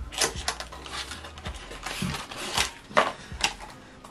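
Screen protector retail box being opened and its contents handled: an irregular run of sharp clicks and crinkling packaging, loudest about three seconds in.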